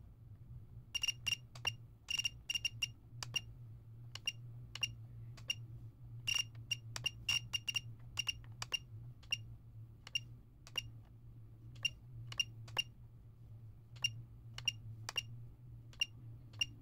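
ToolkitRC Q6AC battery charger beeping at each button press and scroll-wheel step as its menus are worked: short high beeps, irregularly spaced, some single and some in quick runs of three or four, over a steady low hum.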